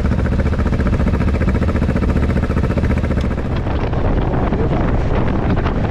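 Cruiser motorcycle engine running steadily at low revs. About halfway through, wind noise on the microphone grows and blurs the engine note.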